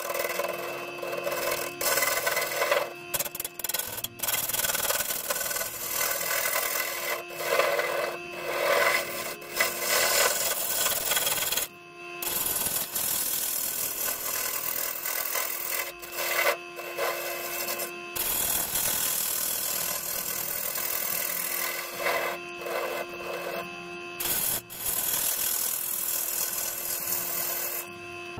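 A bowl gouge cuts across the face of a spinning sapele blank on a wood lathe to flatten the bottom of the bowl. It makes a continuous scraping, rasping cut with a steady ringing tone underneath, broken by a few short gaps where the tool comes off the wood.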